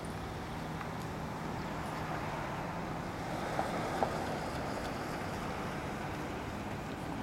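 Outdoor street ambience: a steady rumble of traffic with wind noise on the microphone, swelling slightly a few seconds in, and two short clicks about three and a half and four seconds in.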